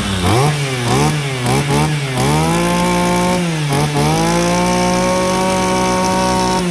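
Small 26 cc two-stroke brush cutter engine being revved: several quick throttle blips in the first two seconds, then held at high speed, with one brief dip about four seconds in.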